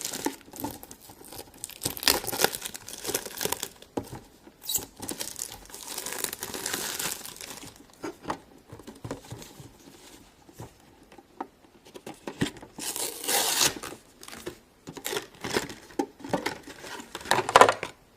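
Toy packaging being crinkled and torn open by hand in irregular spells, with scattered clicks and handling knocks and a quieter stretch about halfway through.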